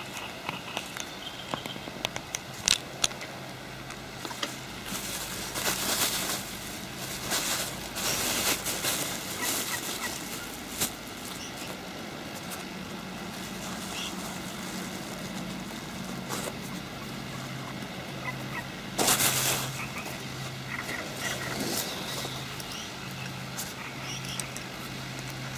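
Close handling noise of fishing tackle: a few sharp clicks from the spinning reel, then a plastic bait bag rustling in several short bursts as the hook is baited. A steady low hum runs underneath.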